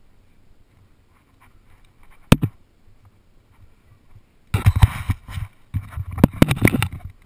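A single sharp knock, then two spells of close scraping and rustling, with a short break between them, as a climber's hands grip and move on rock near a head-mounted camera.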